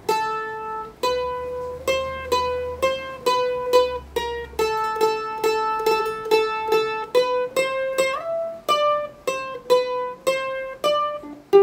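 Mandolin picked with a plectrum, playing the requinto introduction as a single-note melody at about two notes a second, with a short slide up about eight seconds in.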